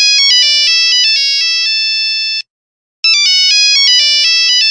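Mobile phone ringtone: a short electronic melody of stepped beeps, several notes sounding together. It plays for about two and a half seconds, stops for about half a second, then starts over.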